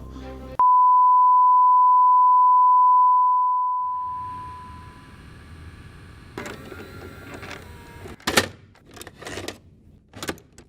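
A single steady beep tone, like a broadcast test tone, cuts in sharply, holds for a couple of seconds and then fades away. Later a low rustling background comes in with a few short sharp noises, the loudest a little after eight seconds in.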